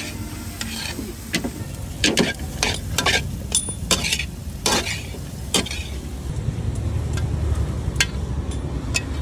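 Spatula knocking and scraping against a large iron pan as boiled egg pieces and vegetables are stirred in hot oil, with light sizzling. The knocks come in a quick run through the first half and thin out after about six seconds.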